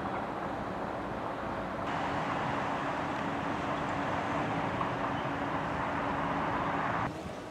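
Steady road traffic noise with a low engine hum underneath. The background shifts abruptly about two seconds in and again near the end.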